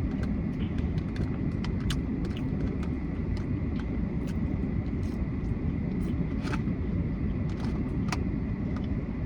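Steady low rumble of a car's cabin, with scattered short clicks.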